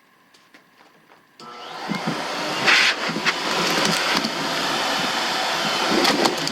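AIIYME SH-168 pet grooming dryer switched on about a second and a half in, its blower motor spinning up to a steady rush of air at its lowest speed setting. A few clicks and knocks of handling sound over it.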